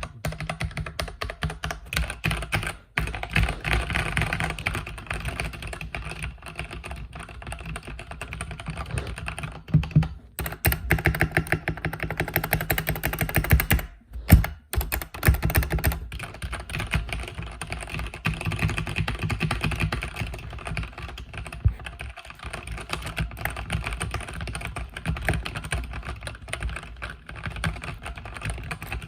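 Continuous fast typing on a mechanical keyboard with Red (linear) switches: a dense stream of keystroke clacks, with a few short pauses.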